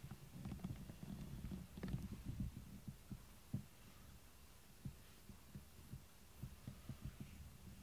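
Cat purring close up, a faint low pulsing rumble that thins out after about three seconds into scattered soft thumps.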